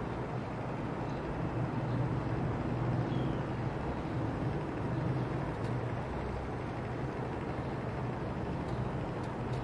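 Small geared motor of a homemade automatic egg turner running, a steady low hum with noise, as it slowly tilts the egg racks through a crank disc.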